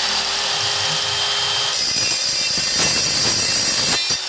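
Evolution EVOSAW180HD 7-1/4-inch steel-cutting circular saw running at full speed with a steady whine, then biting into steel rebar from about two seconds in with a harsher, higher cutting noise. Near the end the cutting noise stops abruptly and the motor spins on freely.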